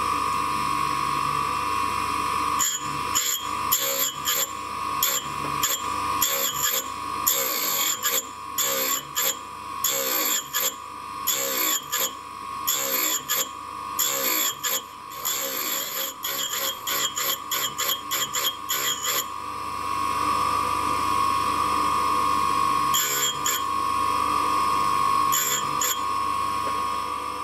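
Tool grinder's wheel running with a steady whine while a 13 mm twist drill point is pressed against it again and again in short, irregular grinding passes, thinning the web at the point. The passes come thick for the first two-thirds, then give way to the wheel running alone, with a few brief touches near the end.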